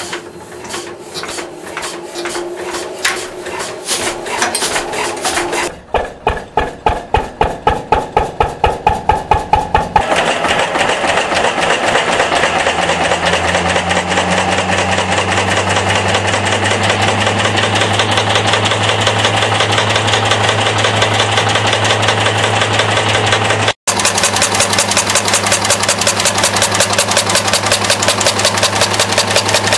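1951 Lister single-cylinder diesel engine, converted to run on waste vegetable oil, starting up. Slow, uneven strokes for the first few seconds, then its beats quicken and grow louder as it picks up speed, and it settles into a steady run. A steady low hum joins after about twelve seconds.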